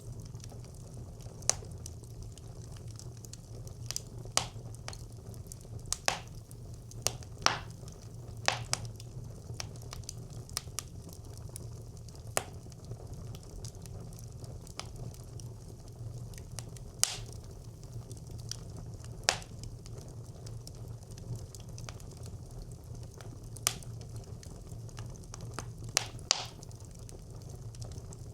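Wood fire burning in a traditional Nordic brick clay stove: irregular sharp crackles and pops, about one a second, over a steady low rumble.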